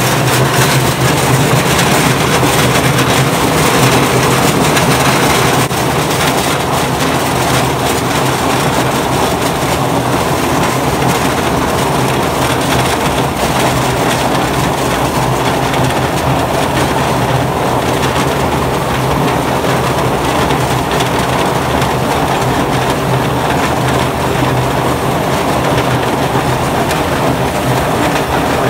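Golf ball washing machine running steadily: a low motor hum under a dense rattle of golf balls and water tumbling in its tub.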